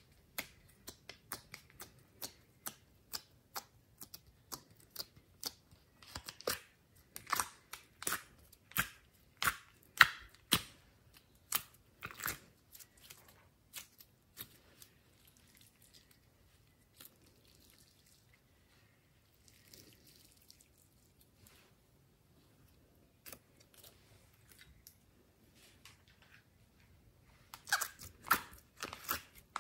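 Glossy slime being pressed and squeezed by fingers, giving a run of sharp, sticky pops and clicks. They thin out to a few through the middle and come thick again near the end.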